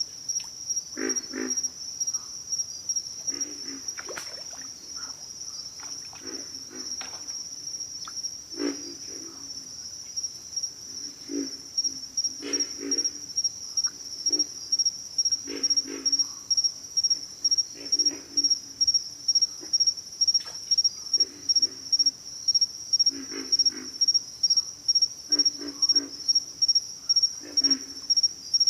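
Pig frogs calling: short, low, pig-like grunts, one every second or two, some in quick pairs. A steady, high-pitched insect trill runs underneath.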